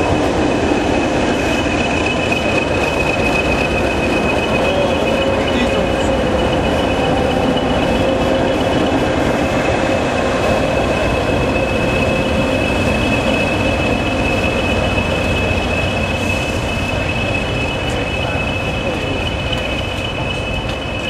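Heritage train of teak carriages running slowly past and round a curve, a steady rumble with a constant high-pitched wheel squeal, easing slightly near the end.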